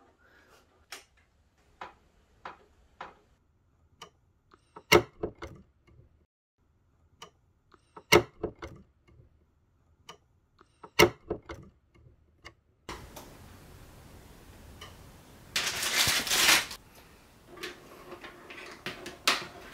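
Scattered sharp clicks and knocks of a screwdriver and the stand's bracket against a monitor's plastic back as the stand is screwed on. About three quarters of the way in comes a louder scrape lasting about a second, followed by more clicks as the stand is fitted into place.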